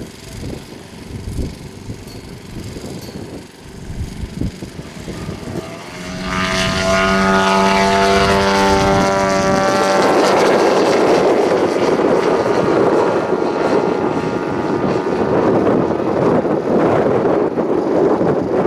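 Engine of a large radio-controlled Piper L-4 Cub scale model, running quietly at first, then opening up to full power about six seconds in as a loud steady pitched drone. From about ten seconds in it turns rougher and noisier while the model flies overhead.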